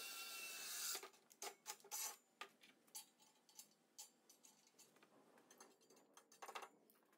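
Cordless drill boring into steel angle iron, running with a steady whine that stops about a second in. Then scattered light clicks and knocks of tools and steel being handled, and near the end a brief scrub of a hand brush across the steel.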